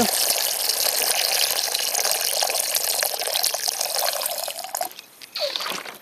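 A thin stream of water pouring and splashing into an aluminium pot that already holds water, stopping about five seconds in.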